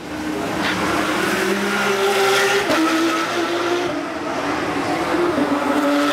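Porsche Carrera Cup race cars' flat-six engines running past at speed, loud and continuous, with the engine pitch stepping down twice.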